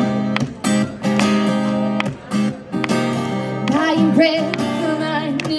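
Acoustic guitar strummed live, with a singing voice coming in near the end.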